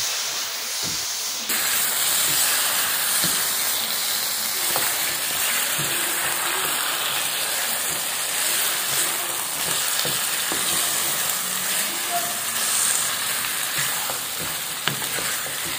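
Raw chicken pieces sizzling in hot oil and onion masala in a nonstick pan while being stirred with a wooden spatula, with soft scrapes and knocks of the spatula against the pan. The sizzling gets louder about a second and a half in.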